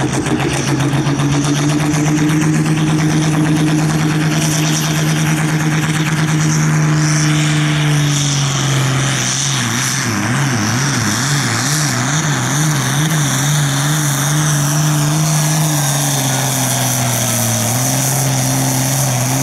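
Diesel engine of an International sport-class pulling tractor running flat out under load as it drags the weight sled, a steady, high engine note. About halfway through the pitch wavers rapidly up and down for a few seconds, then it settles and dips slightly near the end.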